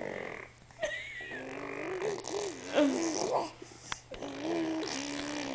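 Baby blowing raspberries: buzzing, spitting lip trills mixed with her voice, in three bouts with short pauses between.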